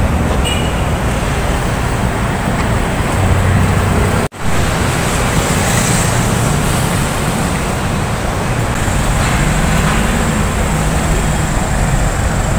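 Street traffic noise: cars and motorcycles passing on the road, a steady rush with low engine hum. The sound cuts out abruptly for a split second about four seconds in.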